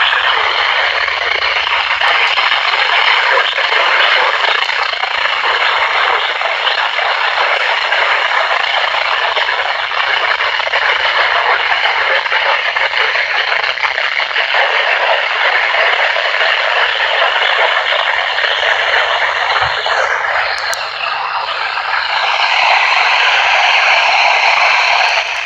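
Weather-band radio receiver putting out loud, steady static hiss with no station voice coming through. The hiss shifts and turns brighter a few seconds before the end.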